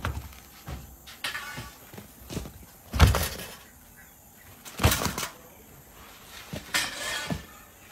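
A few dull thumps and knocks from work at a bakery table, about four in all; the loudest comes about three seconds in.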